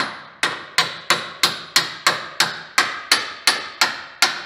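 A hammer tapping a shackle bolt home through the trailer's Dexter EZ Flex equalizer and shackle, in a steady run of about three strikes a second.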